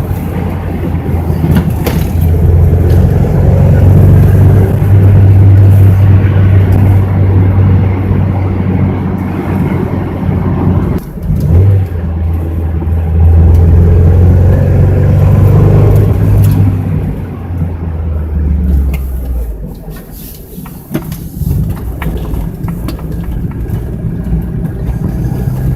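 1999 Mazda Miata's four-cylinder engine running hard under load, with a short break in its note about eleven seconds in. It eases to a quieter, steadier run in the last third. The engine has a cylinder 2 misfire above quarter throttle, traced to a bad coil pack.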